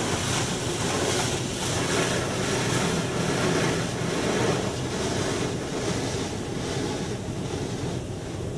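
Spray from a D&S 5000 in-bay car wash gantry drumming on the car's body and windows, heard from inside the cabin, surging about once a second as the spray sweeps over and easing off near the end. The car's engine runs underneath as a steady low hum.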